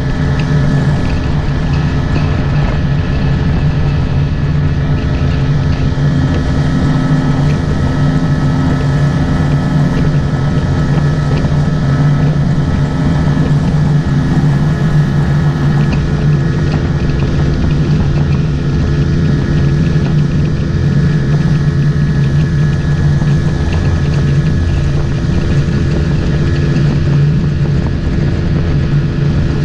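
Motorboat engine running at a steady speed while the boat is underway.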